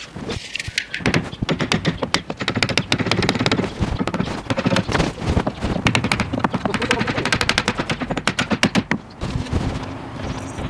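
Rapid, irregular run of wooden knocks and clatter as a cabinet panel is worked and tapped into its slots in the frame; the knocking stops about a second before the end.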